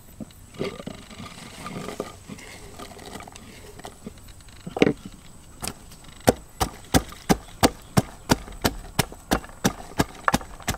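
Wooden pestle pounding in a mortar: a steady run of sharp knocks, about three a second, starting about six seconds in. Before that, a few softer knocks and rustles.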